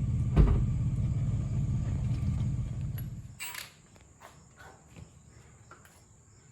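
A vehicle running, a low rumble heard from inside the cab, with a thump about half a second in. After about three seconds it cuts off suddenly, leaving crickets chirping faintly and a few light clicks.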